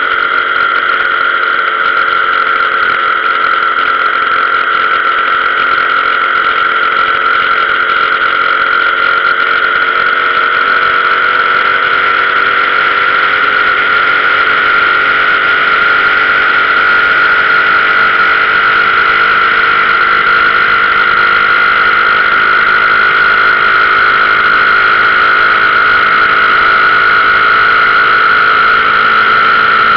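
Motorcycle engine running at a steady cruising speed, a continuous drone with a strong high tone over it.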